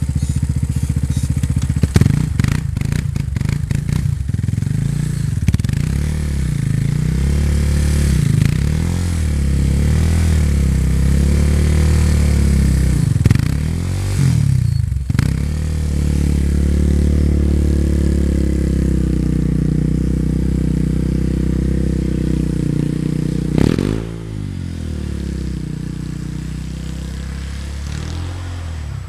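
2008 Yamaha Raptor 350 ATV's single-cylinder four-stroke engine revving up and down again and again as the quad spins and drifts in snow, with a run of sharp clattering clicks about two to four seconds in. About 24 seconds in the engine note falls in pitch and gets quieter as the quad rides away.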